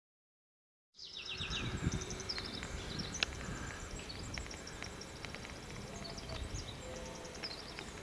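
Silence for about a second, then outdoor dawn ambience: small birds chirping in quick repeated trills over a low rumble, with a single sharp click about three seconds in.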